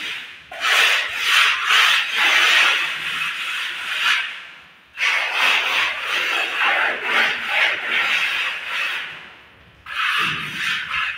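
A hand plastering tool scraping and rubbing over cement render on a wall, in long rasping passes broken by two short pauses.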